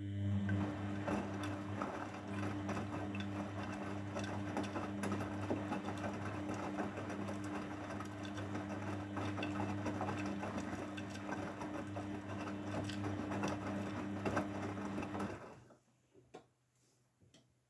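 A Grundig Mini 14 washing machine's motor running steadily with a low mains-like hum and a rattling, crackling noise over it. It cuts out about fifteen seconds in, and a few short clicks follow.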